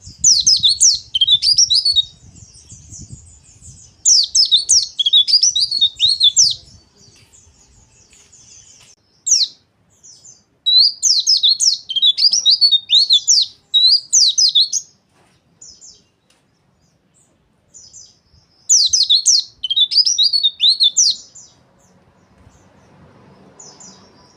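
A white-eye (pleci) singing its rough, rapid twittering song. Several bursts of a couple of seconds each, made of fast, high, sharply falling notes, with short pauses between them.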